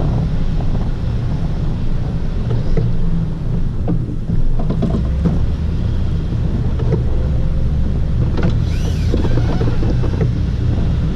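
Chevy 2500HD's 8.1-litre V8 running steadily, with scattered short knocks and rattles and a brief squeak near the end.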